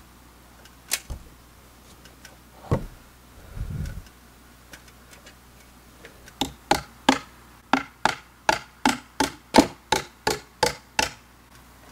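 A few scattered wooden knocks and a low thud, then, from about six seconds in, a steady run of about fifteen sharp hammer blows into the timber frame, roughly three a second.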